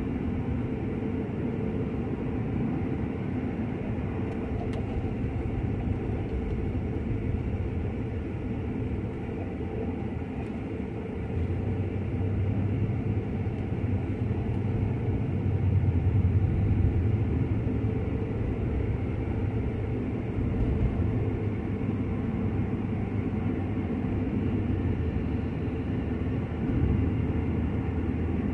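Steady road and engine noise of a car driving, heard from inside the cabin: a low, even rumble of tyres and engine. It grows louder about a third of the way in.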